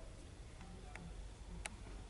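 Quiet underground metro station ambience: a low steady hum with a couple of faint sharp clicks, the clearer one late on.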